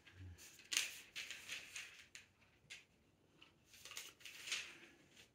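Pages of a thick Bible turned by hand: soft rustling and swishing of paper in several short bursts, the sharpest about a second in and another near the end.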